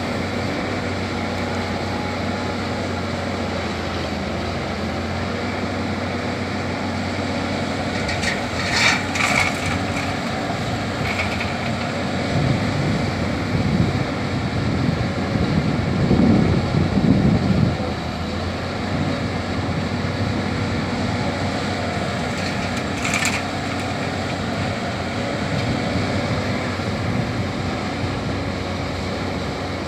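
A CAT 320D hydraulic excavator's diesel engine runs steadily while digging and loading soil. Metallic clanks come about nine seconds in and again near the end, and a louder rough rumble lasts several seconds in the middle.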